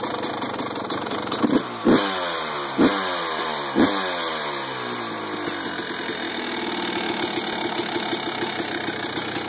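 Yamaha YZ250 two-stroke single-cylinder dirt-bike engine running just after its first start on a freshly rebuilt top end, with a lot of oil in the cylinder. In the first four seconds the revs jump sharply four times and fall back, then it settles to a steady idle.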